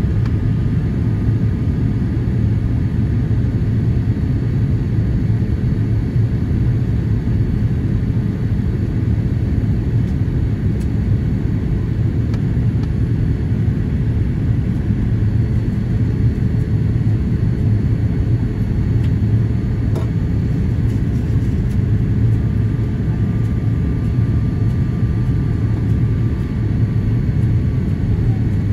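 Steady low rumble of a Boeing 787-8's cabin noise, engine and airflow heard from a window seat as the airliner descends through cloud. A faint click about twenty seconds in.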